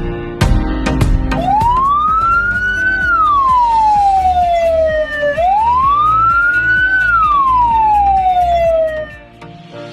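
Ambulance siren in wail mode: a single tone slowly rises and falls twice, about four seconds per cycle, over background music with a beat. The second wail fades out near the end.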